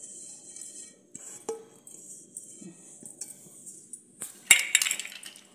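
Metal cake tin being handled and set down on a counter: a single sharp clink about a second and a half in, then a louder burst of metallic clatter near the end.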